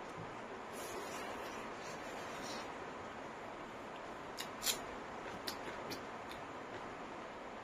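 Eating sounds: a person chewing food, with a few sharp mouth clicks a little past the middle, over a steady hiss.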